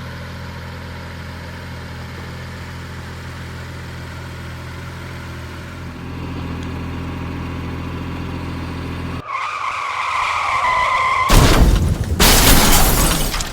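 Porsche Macan Turbo's twin-turbo V6 idling steadily, a little louder about six seconds in. It cuts off abruptly into a high two-tone whoosh and then two loud crashing, shattering hits near the end.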